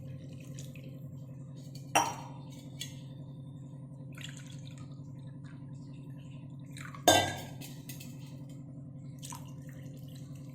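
Kitchen vessels knocking together while water is added to a pressure cooker: two sharp metallic clinks that ring briefly, about five seconds apart, over a steady low hum.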